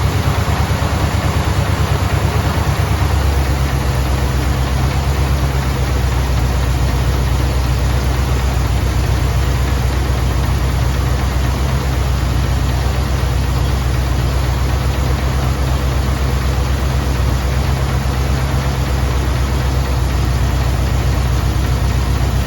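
Chevrolet 283 V8 with throttle-body fuel injection idling steadily, its note settling lower about three seconds in. The engine has a misfire that is being chased.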